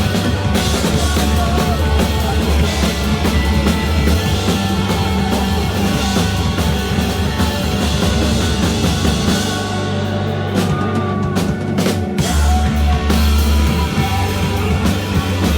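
Rock band playing live, with a drum kit and a heavy bass line. About ten seconds in the cymbals drop out for a short break of a few separate hits, and the full band crashes back in about two seconds later.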